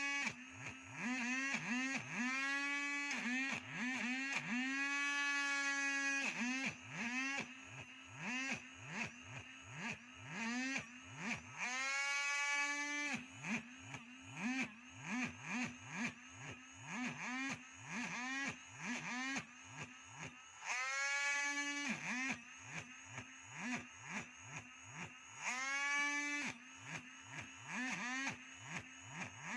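A small electric power-tool motor pulsed on and off, about twice a second, each time whining up in pitch and briefly holding. Now and then it is held for a second or two before letting off.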